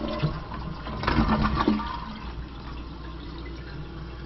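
Water running in a toilet's tank and bowl, with a few knocks and clatter about a second in.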